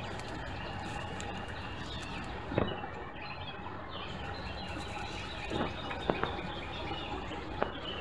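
Outdoor yard ambience: a steady background hiss with small birds chirping intermittently, and a few sharp clicks or knocks, the loudest about two and a half seconds in.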